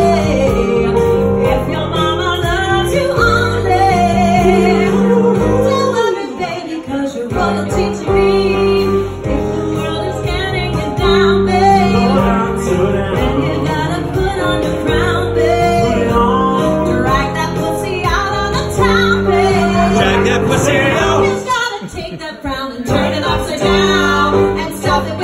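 A woman singing live into a microphone over an instrumental accompaniment, a pop song with sustained sung notes.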